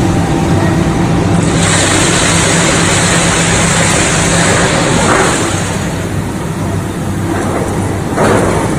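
Hot rolling mill for steel bar running: a steady low machine hum under a constant noisy din, with a loud rushing hiss from about two seconds in until nearly six seconds.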